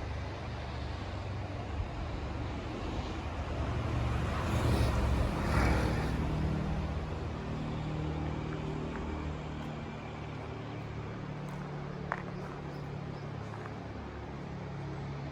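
Road traffic with a steady low rumble, one vehicle swelling past about five seconds in and fading away, and a single small click near the end.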